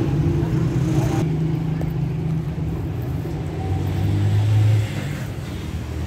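A motor vehicle engine rumbling low over busy street noise, swelling louder about four seconds in and dropping away just before five seconds.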